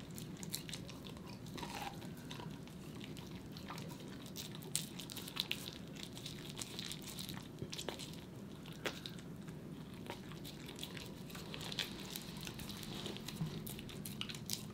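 A corgi gnawing on a raw bone: irregular crunches and sharp clicks of teeth biting and scraping on the bone.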